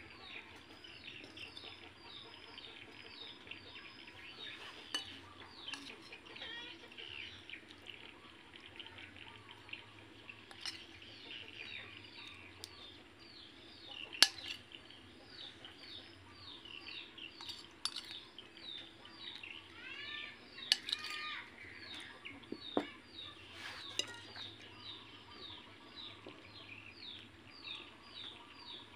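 Birds chirping in a steady run of short falling chirps, about two or three a second, with a few sharp clinks of a metal spoon against the plate.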